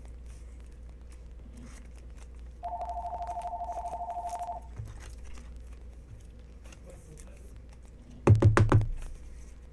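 Electronic telephone ringer trilling once for about two seconds, a warbling two-tone ring. Near the end comes a brief, loud, low-pitched buzzing sound.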